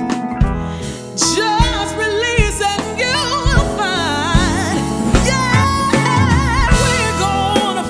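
Live soul band playing a slow groove: drums and bass under a wordless lead melody that wavers in vibrato.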